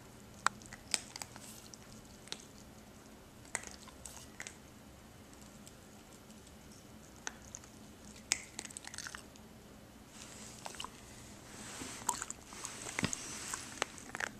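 A puppy chewing and crunching on food, in scattered sharp crunches that come thicker and louder from about ten seconds in.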